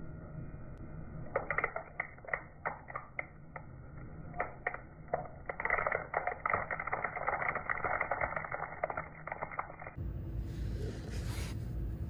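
Pine cone crackling and snapping under a slowly rolling car tire, slowed down in slow motion, the cracks coming thick from about halfway. Near the end it gives way to a steady hiss with a low hum.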